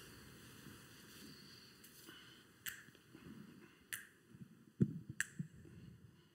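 Faint finger snaps keeping time, about one every second and a quarter, with a soft low thump among them, over the quiet room tone of a hall.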